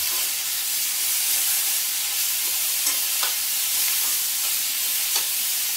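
Green beans sizzling in hot oil in a skillet, a steady frying hiss. Metal tongs click against the pan a few times, about halfway through and near the end, as the beans are stirred.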